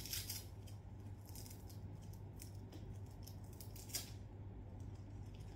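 Coiled Monster Rock guitar cable being handled and unwound, its jacket rustling and scraping in the hands, with a sharper scratch about four seconds in; the handling noise then dies away.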